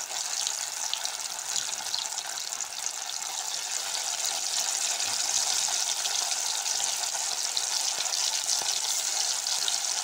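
Marinated chicken pieces, coated in yogurt and cornflour, deep-frying in hot oil in a kadai: a steady sizzle with fine crackles.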